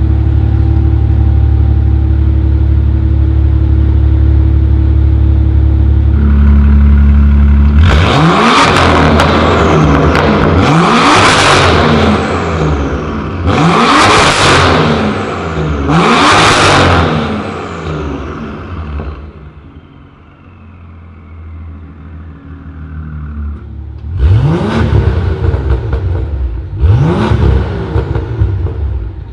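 BMW F87 M2's turbocharged straight-six with an Armytrix decat downpipe and valved exhaust, idling loudly and then revved hard about six times. Four revs come in quick succession, then it settles to a quieter idle, then two more revs near the end; each one rises sharply and falls back. It sounds in the concrete of an underground car park.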